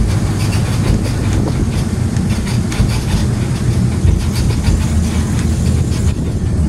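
Tour bus driving along: a steady low engine drone with frequent rattles and clicks from the moving vehicle.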